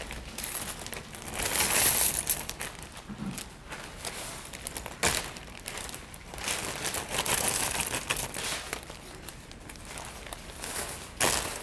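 Plastic zip-top storage bags crinkling and rustling as dry cereal, pretzel sticks and other trail-mix pieces are poured in by hand, with scattered sharp crackles.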